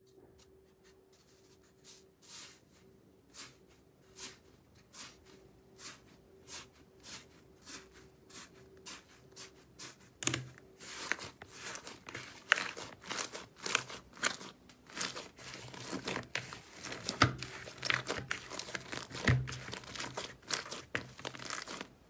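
Crunchy slime being pressed and squeezed, crackling and crunching. At first there are single crunches at an even pace, about one every three-quarters of a second. From about halfway the crackling turns denser and louder, with several sharp crunches.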